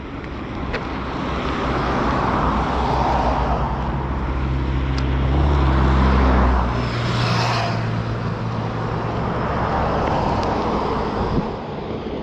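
A motor vehicle passing close on the road. Its engine hum and tyre noise build up, peak about seven seconds in and drop in pitch as it goes by. More road traffic swells again about ten seconds in.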